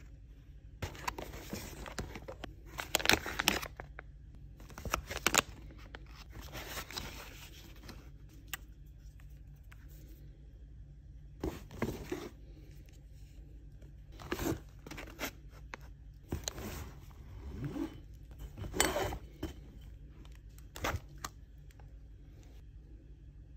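Paper, tissue and packaging rustling and crinkling as food items are lifted out of a canvas tote bag, in irregular bursts with a few light knocks of jars and canisters being handled.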